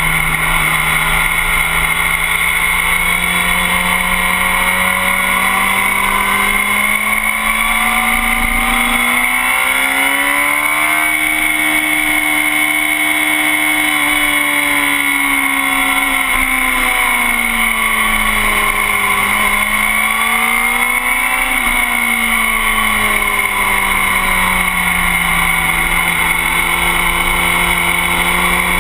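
Motorcycle engine running at speed, heard from a camera on the bike's tail. The pitch holds steady, rises about ten seconds in and eases off, climbs again briefly around twenty seconds, then settles back down.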